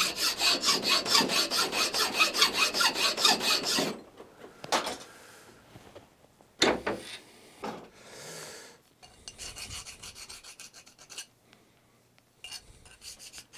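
Flat file rasping in quick, even strokes across the edge of a mild steel plate clamped in a bench vise, taking it down in width. The strokes stop about four seconds in. They give way to a few knocks as the plate is handled, then lighter, quicker strokes of a file deburring the edge of the plate held in the hand.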